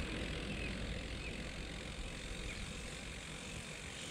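Steady low wind rumble on the microphone with road noise from a bicycle riding along a paved road.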